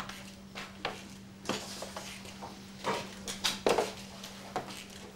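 Light, irregular clinks and knocks of china crockery, such as a teacup and saucer being handled, with the loudest cluster just under four seconds in.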